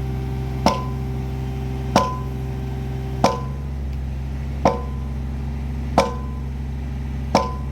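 Heavy machinery: a steady low engine drone under sharp metallic clanks, each with a short ring, struck evenly about every 1.3 seconds, six times.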